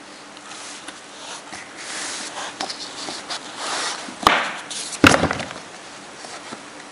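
Cardboard graphics card retail box being handled and turned over by hand, with rustling and scraping. There is a sharp tap about four seconds in and a louder knock about a second later as the box strikes something.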